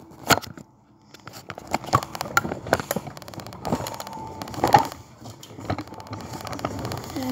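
Irregular knocks and clicks with rustling, as of things being handled and bumped, with a brief quiet gap about a second in.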